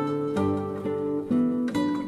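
Background music: acoustic guitar plucking notes and chords, a new note about every half second, each ringing and fading.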